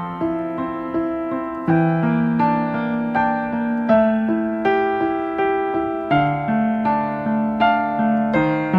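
Background music: a piano or electric keyboard playing a slow run of notes, each struck and left to ring.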